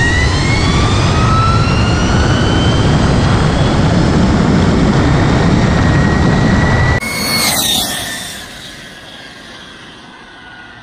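Electric Honda Grom conversion accelerating at full throttle from a rolling start: the motor's whine rises in pitch and levels off under heavy wind rush on the onboard microphone. About seven seconds in, the bike is heard from beside the road instead, a quick whooshing pass-by that fades as it moves away.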